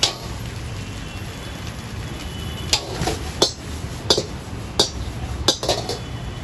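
A metal ladle striking and scraping a wok while egg fried rice is stir-fried: one sharp clank at the start, then a quick run of about seven clanks in the second half. Under it runs the steady rumble of the gas burner.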